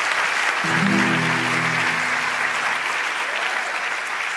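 An audience applauding steadily after a song. About a second in, a single chord from an instrument rings out briefly over the clapping.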